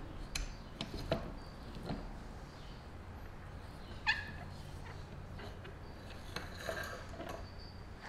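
Quiet metallic clicks and rattles of saw chain and a bench-mounted rivet spinner being handled, with a short squeak about four seconds in.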